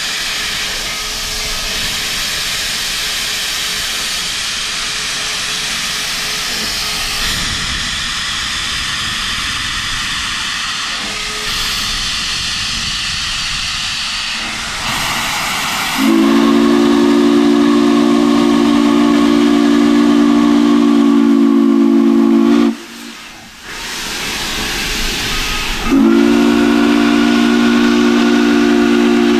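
Steam locomotive venting steam in a loud, steady hiss from its open cylinder cocks. About halfway through, its chime steam whistle sounds several steady notes together in a long blast that cuts off sharply, then a second long blast follows a few seconds later: two long blasts, the signal that the train is about to move off.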